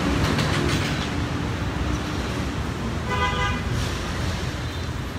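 Street traffic rumbling, with a short vehicle horn toot about three seconds in.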